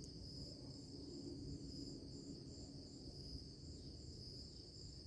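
Faint background of insects chirping: a constant high trill with an evenly repeating pulse above it, over a low hum.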